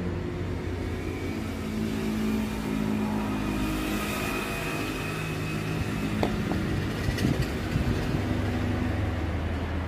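Steady low mechanical hum, like a running engine, with a few light clicks about six to seven and a half seconds in.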